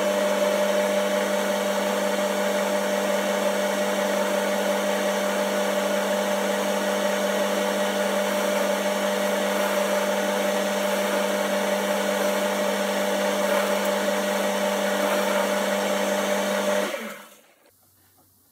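Boxford metal-turning lathe running at a steady speed, a constant motor and gear hum as the spindle turns a threaded chuck screw against the screw-cutting tool. About seventeen seconds in it is switched off and the hum quickly dies away.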